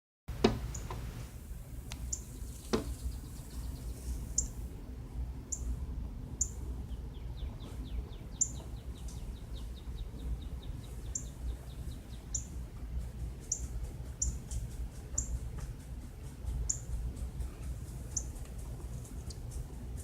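A bird giving short, high, falling chip calls every second or two, with a fast run of faint ticks for several seconds in the middle. Two sharp knocks sound near the start, over a steady low hum.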